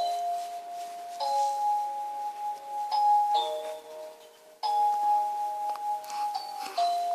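Harp notes plucked one at a time in a slow melody, each note ringing on until the next, about five or six notes.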